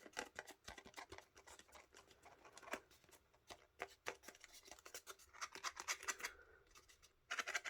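Faint scattered clicks, taps and scratchy rustles of hands handling card and craft pieces on a work surface, with a few sharper ticks.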